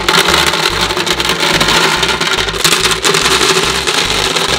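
Many gumballs pouring into the clear globe of a toy gumball machine, clattering against the globe and each other in a dense, continuous rattle. A steady low beat runs underneath.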